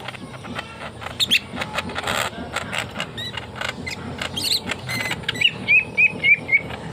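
Leafbird (murai daun) singing a rapid, varied string of chirps, clicks and whistles. Near the end come four loud whistled notes in quick succession.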